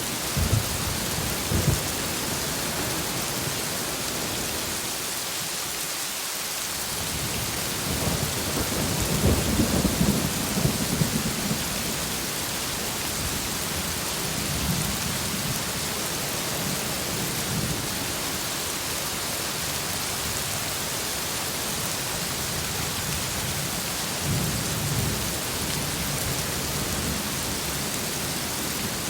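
Heavy rain falling steadily, with rolls of thunder: two short cracks near the start, a longer rumble about eight to twelve seconds in, and a softer one near the end.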